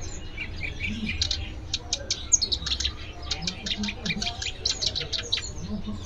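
Caged songbirds chirping, a dense run of short, high chirps in quick succession.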